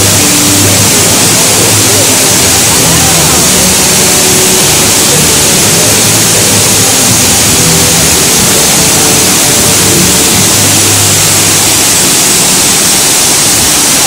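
Ruby Falls, an underground waterfall in a limestone cave, giving a loud, steady rush of falling water with no let-up.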